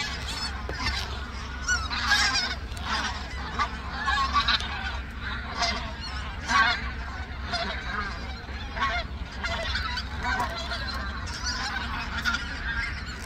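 A large flock of migrating wild geese calling overhead in flight, a dense chorus of many overlapping short honking calls.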